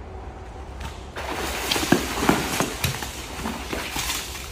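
Crocodile thrashing and splashing in the water of its pool as it is hauled out on a pole noose, starting about a second in, with several hard slaps of water and body.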